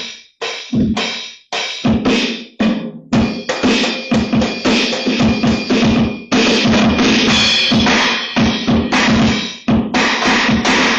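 Drum kit sounds: separate hits about twice a second for the first few seconds, then a fast, dense run of drum hits.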